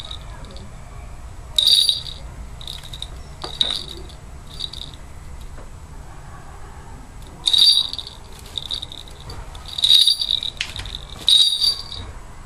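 Small metal hawk bells jingling in a series of short, irregular shakes, as worn on a Harris hawk's legs while the bird moves.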